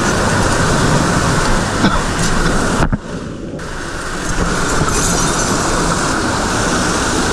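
Loud, steady rush of a mountain stream's cascading water. About three seconds in, the hiss is briefly muffled for around half a second.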